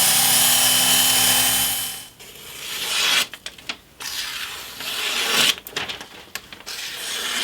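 Work Sharp belt grinder running with a knife edge held to the belt while the final edge is put on. The grinder stops about two seconds in, and several short, irregular rubbing and scraping sounds follow.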